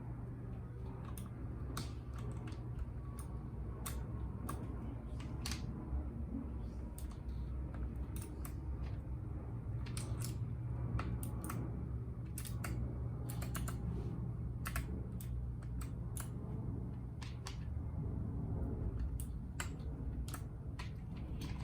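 RAKK Lam Ang Pro mechanical keyboard with bronze switches being typed on: irregular keystroke clicks, sometimes in quick runs, over a steady low hum.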